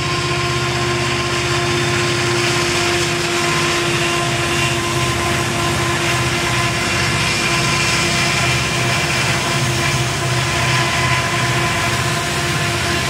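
Montana Rail Link diesel-electric locomotives passing close, working upgrade with a loaded oil train: a steady diesel engine drone with a rhythmic low throb and a steady whine over it.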